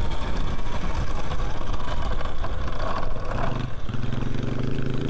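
Riding noise from a Talaria electric dirt bike on a dirt trail: wind rushing over the microphone and tyres rolling. About four seconds in it settles into a steadier, even hum.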